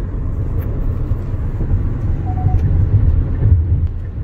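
Steady low rumble of road and engine noise heard inside a Hyundai SUV's cabin while cruising at freeway speed.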